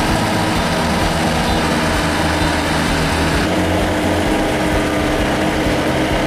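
Grillo FD 2200TS out-front ride-on mower running steadily while mowing: its engine and spinning cutting deck make an even, continuous sound.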